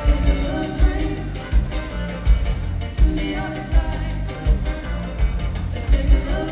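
Live soul band music: singing over a full band with a horn section, drums and guitar, driven by a steady kick-drum beat.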